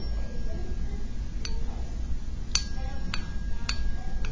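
A struck tuning fork ringing with one steady tone, its vibrating tines touching a hanging styrofoam ball. About four light ticks come as the ball is knocked against the prongs.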